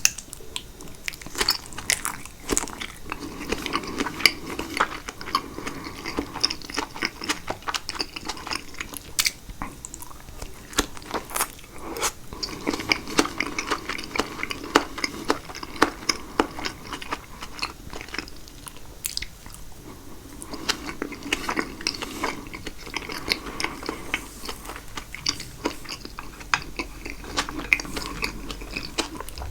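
Close-up chewing of caprese salad (tomato, mozzarella and basil in a thick balsamic vinaigrette): chewy mouth sounds with many small sharp clicks and smacks.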